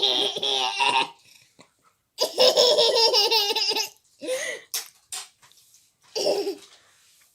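A young child laughing: two long runs of high-pitched giggling in the first four seconds, then a few short bursts.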